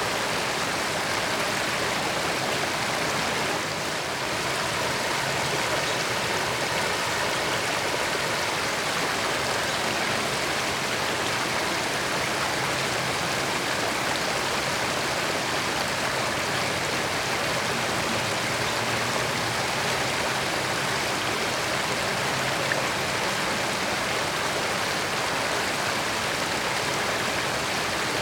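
Creek water running steadily, a constant, even rush.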